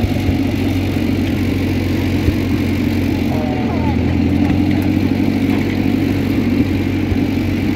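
International Harvester B414 tractor's 2.3-litre four-cylinder gasoline engine running steadily.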